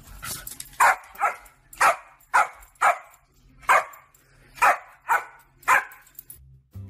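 Dog barking at a parrot: about nine short, sharp barks, several coming in quick pairs.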